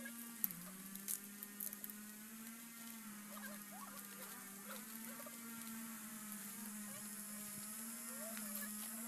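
Fresh coconut leaflets rustling and crackling as they are bent and tucked through a weave by hand, with a few sharp snaps in the first two seconds, the loudest about half a second in. A steady low hum and a high hiss run underneath.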